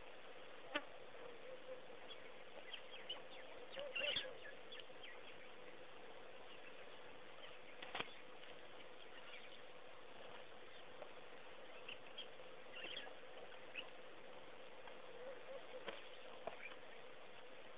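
Faint waterhole ambience: scattered short chirps and clicks over a steady low hum.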